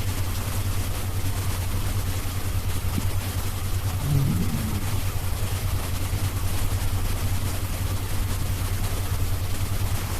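Snoring: a steady low rattling rumble, with a brief higher pitched rise about four seconds in.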